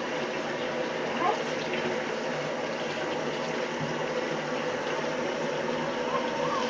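Bathtub tap running, water pouring steadily into the tub.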